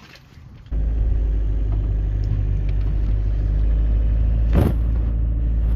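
Engine and road noise heard from inside a moving vehicle, starting abruptly about a second in and running steadily after that, with a single knock near the end.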